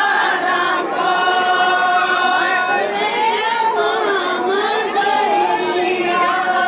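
A group of women singing a traditional Kashmiri wedding song (wanvun) together without instruments, in long held notes that slide between pitches.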